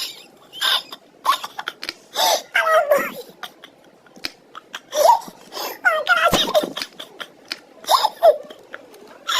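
A young boy laughing and giggling in short, high-pitched bursts with squealing rises and falls in pitch, about eight outbursts with brief pauses between them.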